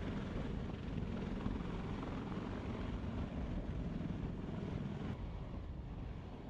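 CH-53E Super Stallion heavy-lift helicopter hovering low, its rotor and turbines giving a steady, dense rumbling rotor wash. About five seconds in the sound turns duller as the higher part drops away.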